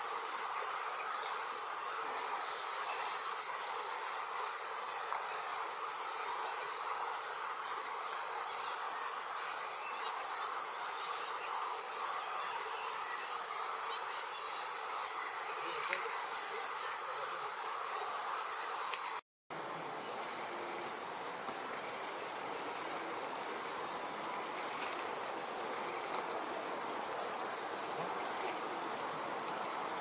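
A continuous, shrill insect drone of forest crickets, held on one steady high-pitched tone over a softer hiss of other insects. It drops out for an instant about two-thirds of the way through and comes back slightly quieter.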